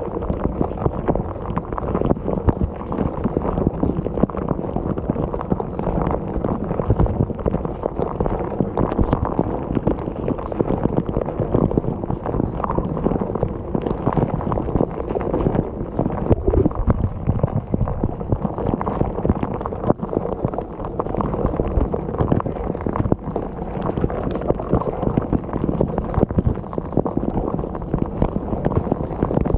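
Dishwasher running a wash cycle: water spraying and sloshing inside the tub, a steady muffled churning with many small irregular knocks.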